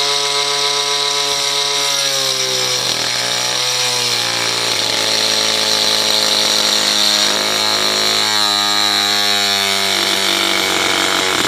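Electric angle grinder running, its disc grinding down a fibreglass ridge on a boat deck, with a steady whine and a gritty hiss. The whine sags in pitch as the disc is pressed into the fibreglass, around two to three seconds in and again near the end.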